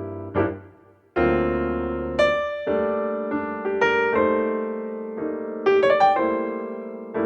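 Background piano music: struck chords and single notes that ring and fade, with a new chord about a second in.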